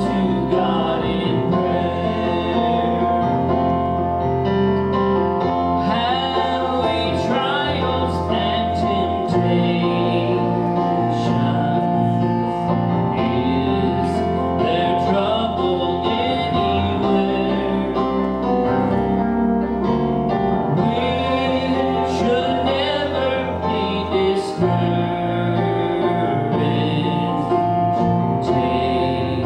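Gospel worship music: voices singing over instrumental accompaniment, with a bass line that changes note every several seconds.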